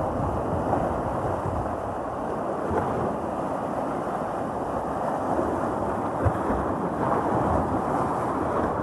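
Sea waves breaking and surging on a beach, a continuous loud wash of surf with wind buffeting the microphone.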